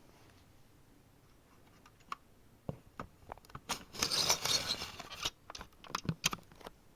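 Small objects being handled on a work desk: quiet at first, then scattered taps and clicks from about three seconds in, with about a second of rustling or scraping in the middle.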